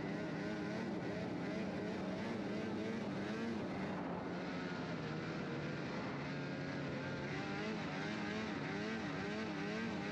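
Snowmobile engine running hard, its pitch rising and falling over and over as it is revved up and down, at a steady loudness.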